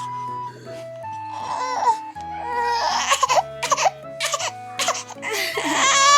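A young baby fussing and crying in short whining cries, upset by hiccups that won't stop, over background music of plain, steady notes. The loudest cry, long and wavering, comes near the end.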